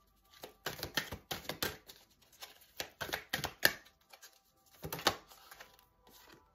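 Deck of oracle cards being shuffled by hand: a run of quick, irregular card slaps and clicks that tails off about five seconds in.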